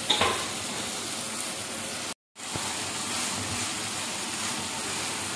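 Boiled rice sizzling in a non-stick wok with ghee, milk, sugar and food colour over high heat as the liquid cooks off, stirred with a spatula. The sound cuts out for a moment a little after two seconds.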